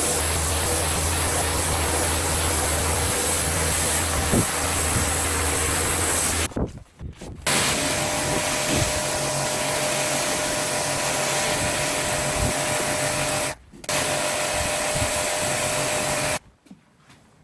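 Electric pressure washer (Kranzle K10/122) running with its water jet spraying, a steady hiss over a motor hum. It drops out briefly twice and stops near the end.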